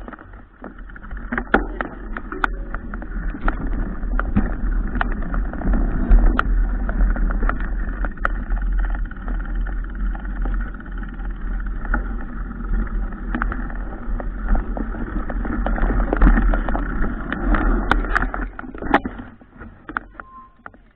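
Wind and rolling noise on a bicycle-mounted camera riding over a dirt track: a muffled, steady rumble with sharp clicks and rattles from the bicycle over bumps. It dies away near the end as the bike comes to a stop.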